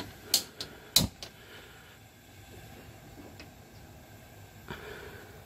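Faint steady hiss of the Coleman RoadTrip LXE grill's propane burners running turned down to a blue flame, after their venturi tubes have been cleaned. A few sharp knocks or clicks come in the first second or so, the loudest about a second in.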